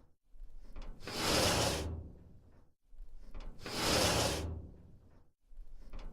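Sliding metal dumpster door being slid along its track, the same slide repeating three times about two and a half seconds apart. Each slide starts low and rough, swells into a loud scraping rush, and fades away.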